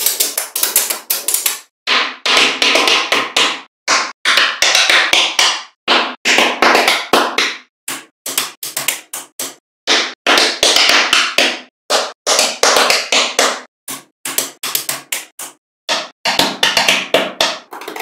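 Small magnetic balls clicking and clattering against one another in rapid bursts, each a flurry of sharp clicks lasting about a second, with short pauses between bursts.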